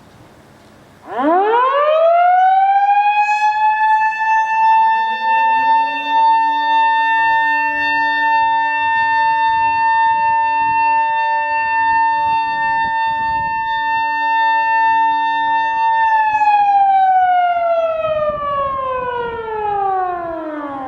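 Fire-department warning siren played over outdoor public-address loudspeakers, sounded as the fire-prevention-campaign time signal. One long wail: it starts about a second in, climbs quickly to a steady high pitch, holds for about thirteen seconds, then slowly winds down.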